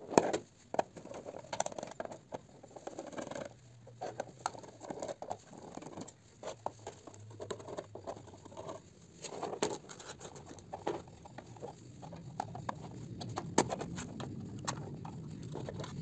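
Screws being undone from the plastic back cover of a power extension board and the plastic case handled: scattered small clicks, taps and scrapes of screwdriver, screws and plastic.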